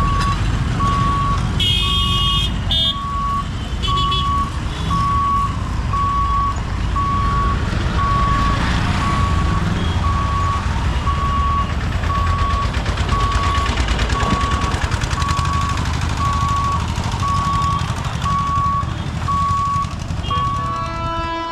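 An electronic beeper sounds one short tone about once a second over the low rumble of waiting road vehicles. Short road-vehicle horn toots come about two and four seconds in. Near the end, a WAP-7 electric locomotive's multi-tone horn begins to blow.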